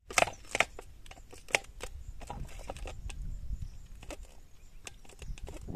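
Irregular sharp clicks and ticks, the loudest three within the first second and a half, over a low steady rumble like wind on the microphone.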